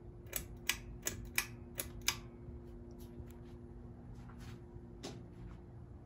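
A Hampton Bay Heirloom ceiling fan being started: a quick run of six sharp clicks from its pull chain in about two seconds, then a further click about five seconds in. Under the clicks its 188x13mm motor hums steadily as the blades spin up.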